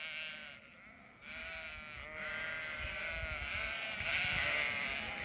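A flock of Zwartbles ewes bleating, many calls overlapping. They dip quieter about a second in, then build louder toward the end.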